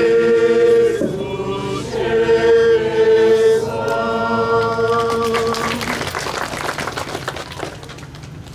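Choir and congregation singing a short unaccompanied acclamation in long held notes, the sung response that closes the Gospel reading. The singing stops about six seconds in and gives way to a couple of seconds of scattered crackling noise.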